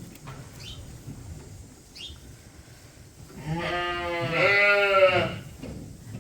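A sheep bleating: one long wavering bleat of about two seconds, with a brief break partway through, about three and a half seconds in.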